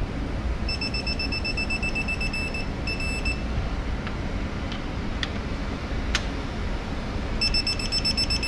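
Digital torque wrench beeping in a rapid, high-pitched pulsing tone as a bolt on the 10-bolt rear differential reaches its 60 ft-lb setting. It beeps for about two and a half seconds near the start, then again from about a second before the end.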